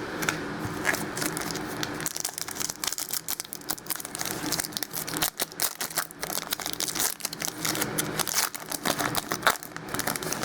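Wrapper of a trading-card pack being torn open and crinkled by hand, a run of irregular crackling strikes that starts about two seconds in, with the cards then handled.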